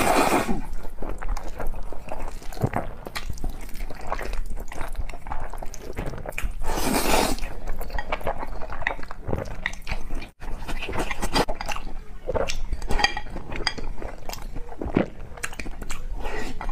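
A person slurping spicy instant noodles: long noisy pulls at the start and again about seven seconds in. Between them are wet chewing and clicking mouth sounds.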